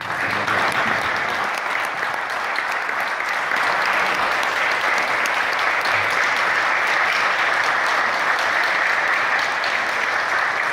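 Large audience applauding: many hands clapping together, starting suddenly and holding steady.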